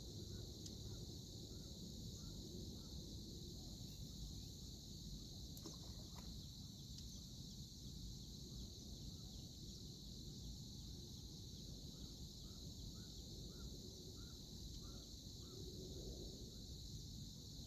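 Steady high-pitched insect drone, with a bird giving a short call over and over, about two calls a second, in one run near the start and another near the end.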